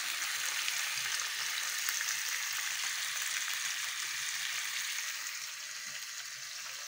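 Breadcrumb-coated pollock pieces frying in vegetable oil in a grill pan: a steady sizzling hiss with fine crackling, getting a little quieter near the end.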